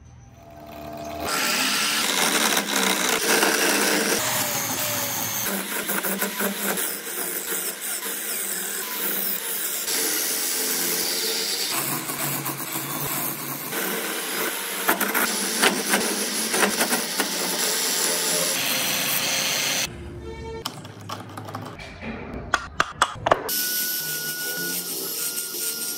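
Small motor-driven lathe spinning a wooden wheel blank in a drill chuck while a hand gouge cuts into it: a steady grinding, scraping noise, broken into several edited stretches. Near the end it gives way to quieter clicks and scraping from hand carving.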